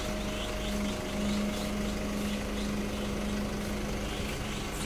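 Isuzu 600P truck's diesel engine idling steadily while parked to work the aerial platform, with an even hum and a higher tone over it.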